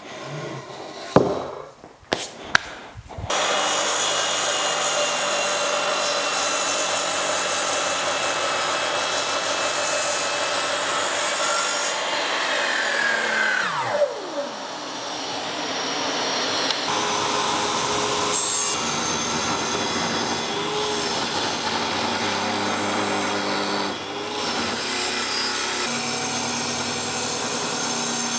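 A few sharp wooden knocks, then power saws cutting wood in long steady runs. Near the middle a Metabo sliding mitre saw's blade winds down with a falling whine, and toward the end a table saw is cutting.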